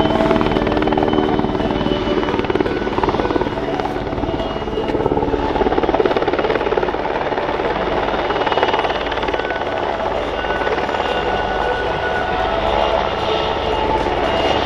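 PZL W-3 Sokol twin-turbine helicopter flying low and hovering, a steady loud mix of rotor beat and turbine noise.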